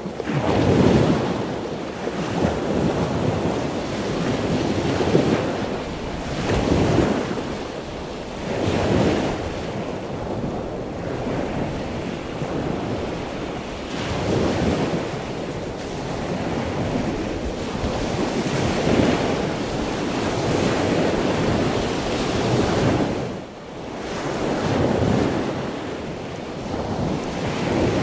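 Sea surf washing in and breaking in repeated surges every couple of seconds, with wind buffeting the microphone.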